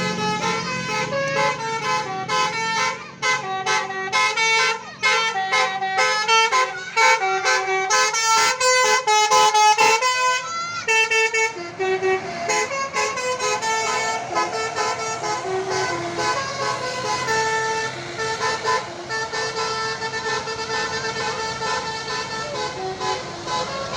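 Bus telolet horn: a bus's multi-tone musical air horn playing quick stepped melodies, note after note. It is loudest through the first ten seconds, then carries on more softly with slower notes.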